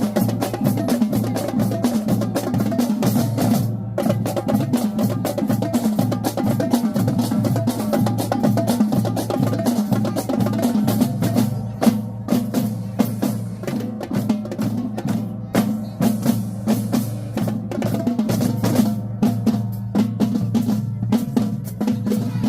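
Marching drumline playing a fast cadence: rapid snare drum strokes and rolls over pounding bass drums. There is a brief break about four seconds in, and the second half has sharper, more spaced, accented hits.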